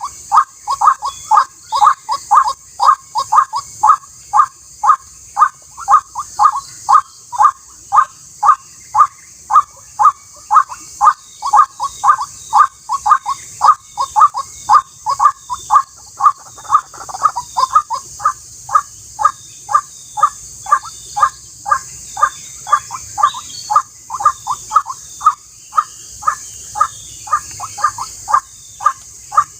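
White-breasted waterhen (ruak-ruak) calling, the same short harsh note repeated monotonously at about two a second, over a steady high hiss.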